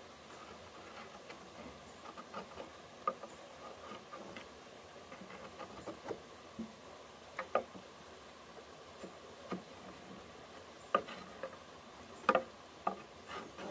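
Light, irregular taps and scrapes of a small metal tool worked against the base of a green bamboo pole and the wooden board it stands on, with a few sharper knocks near the end.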